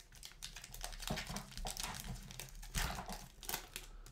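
Hockey trading cards and their packaging being handled: irregular crinkling and rustling with a couple of soft knocks about a second in and near three seconds in.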